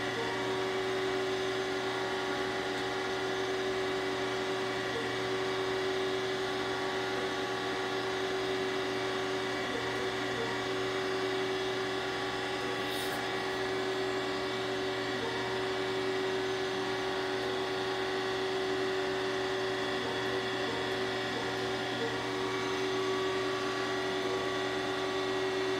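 Surface grinder running with its wheel spinning and the table traversing under power, giving a steady machine hum with several held tones. There is a small tick about every five seconds and one brief sharp click about halfway.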